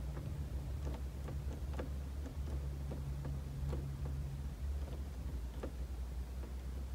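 Scattered light clicks and taps, irregular and about a dozen in all, as hands fit a replacement ignition switch into a van's steering column, over a steady low hum.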